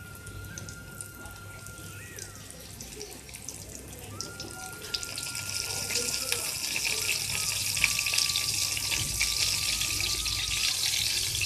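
Bombay duck fillets coated in semolina and flour frying in hot mustard oil in a pan. The sizzle and crackle is light at first and grows much louder about five seconds in, as more fish go into the oil.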